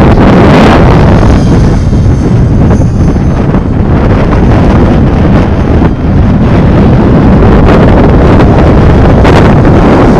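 Strong wind buffeting the microphone, with a Compass 6HV electric RC helicopter heard faintly beneath it; its motor shows as a thin high whine from about one to four seconds in.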